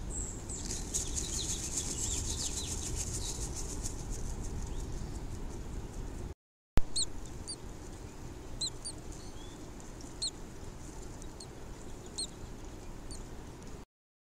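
Bluebird chirping over scratchy rustling of nest material inside a nest box. After a brief break and a click, a string of short, high chirps comes about once a second. The sound stops abruptly just before the end.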